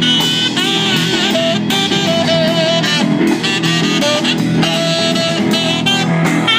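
Instrumental music played by a band, with guitar prominent and wavering held melody notes, steady and loud.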